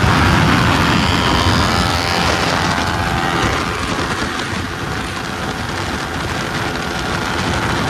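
Motorcycle engine running at speed under a heavy rush of wind noise; it fades somewhat midway and grows again near the end.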